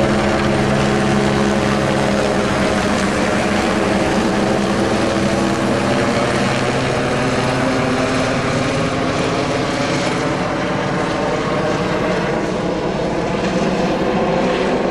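Helicopter overhead, the steady, loud sound of its rotating blades and engine.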